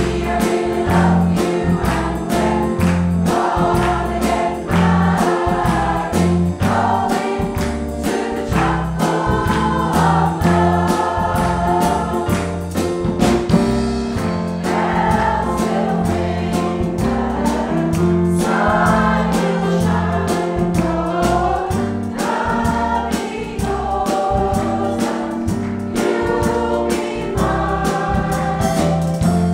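Community choir singing in harmony over an accompaniment with a steady beat and a bass line.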